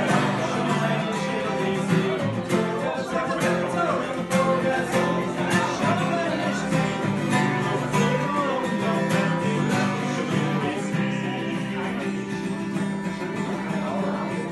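Two acoustic guitars strumming chords in a steady rhythm, with a man singing along.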